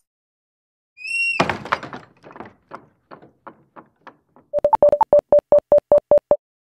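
Electronic sound effects: a brief high tone, a run of echoing knocks that fade away, then a quick, even series of clicking beeps, about six a second.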